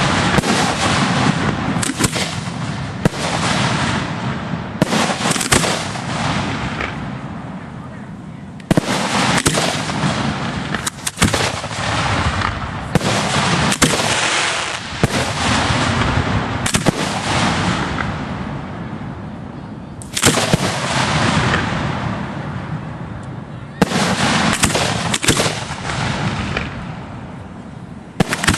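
Fireworks going off in rapid volleys at close range: a fast string of sharp bangs and launch thumps over continuous crackle and hiss, easing off briefly about eight seconds in and again near twenty seconds.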